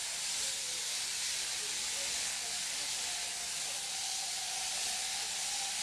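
A sheep-shearing machine handpiece runs steadily as it clips through a sheep's fleece, making a continuous high hiss.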